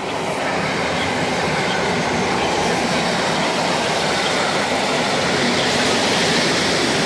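Two coupled EN57 electric multiple units run past close by, a steady loud rush of wheel and running noise on the rails. It builds at the start and holds as the carriages go by.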